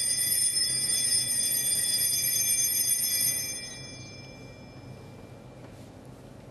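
Altar bells rung at the elevation of the consecrated host: a set of small bells shaken in a bright, steady jingle, then stopped about three seconds in and left to ring out, fading away over the next two seconds.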